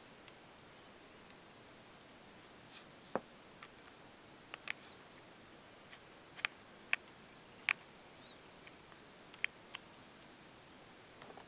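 Irregular small metallic clicks and taps of a precision screwdriver against a tiny screw and the iPhone 3G's metal mid-chassis as a stubborn screw is worked into place, the strongest few clicks about two-thirds of the way through.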